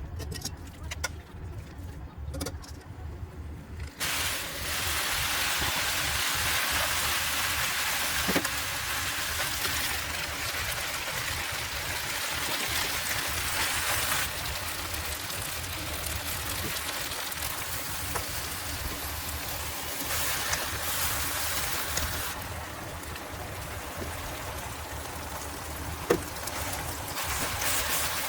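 Food sizzling in a hot frying pan as the yaki udon ingredients (pork, green onion, udon noodles) are pan-fried. A few light clicks come first, then a loud, steady sizzle starts about four seconds in and runs on, changing level a few times.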